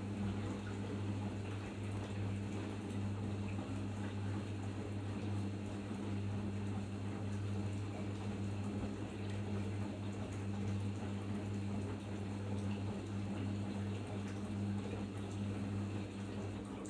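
Arçelik 5083 washing machine in its final rinse: a steady low hum with water rushing through it. The sound drops slightly just before the end.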